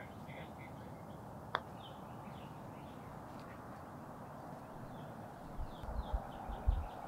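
Golf club striking the ball on a short chip shot: one sharp click about a second and a half in. Birds call faintly in the background, and a few low bumps come near the end.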